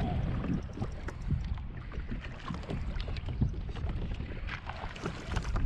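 Wind buffeting the microphone over water slapping against a kayak hull, with scattered small knocks and clicks.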